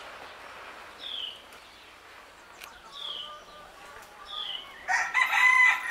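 A small bird repeats a short chirp that falls in pitch, about every second and a half. Near the end, louder, rougher calls from chickens come in.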